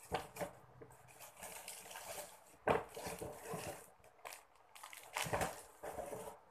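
Clear plastic wrappers and a brown paper bag rustling and crinkling as packaged squishy toys are handled, with two louder crackles, about three seconds in and a little past five seconds.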